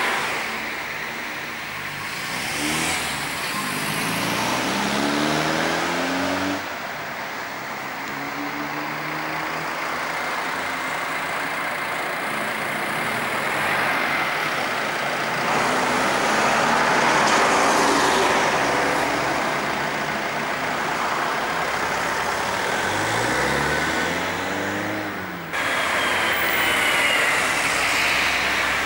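Car engine pulling away and speeding up several times, its pitch rising each time, over steady tyre and road noise. The sound changes abruptly twice.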